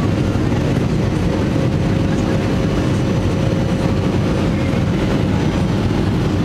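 Jet airliner cabin noise during the climb after takeoff: a steady low roar of engines and airflow heard from inside the cabin, with a constant hum running through it.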